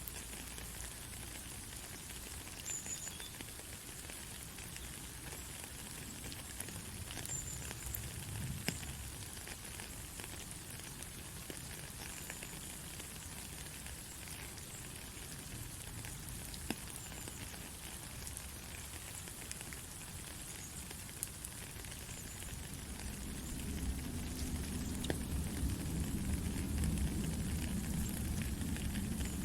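Steady rain falling, an even hiss with scattered sharp drop ticks. A low rumble swells up under it in the last several seconds.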